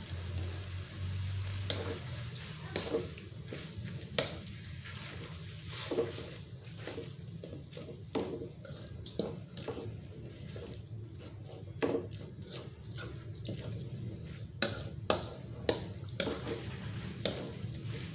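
Boiled instant noodles being stirred into a frying mixture in a pan, the cooking utensil scraping and clacking irregularly against the pan over a low sizzle.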